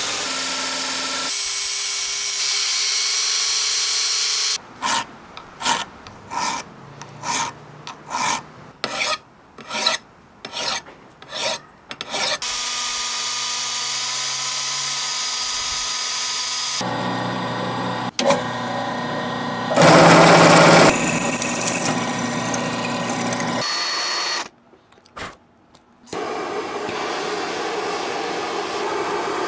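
A run of metalworking on steel: a belt grinder grinding, then about ten back-and-forth hand-file strokes, then power sanding with a drill-driven sanding drum. Near the end comes the steady hiss of gas torches burning.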